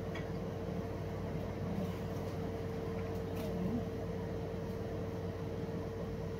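A steady machine hum, with a few faint clicks and taps as bowls and wrappers are handled on the counter.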